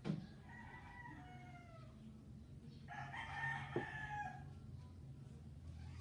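A rooster crowing faintly in the background, twice: first a call with falling notes, then about three seconds in a stronger, steadier call held for about a second and a half. A low steady hum runs underneath.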